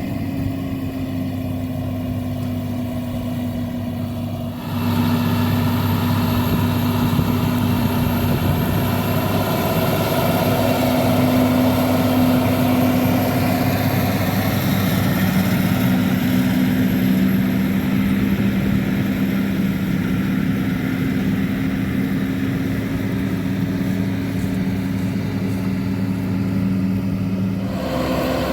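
John Deere 7430 Premium tractor's six-cylinder diesel running steadily while pulling a slurry tanker with soil injectors. It gets suddenly louder about five seconds in, and the sound changes abruptly shortly before the end.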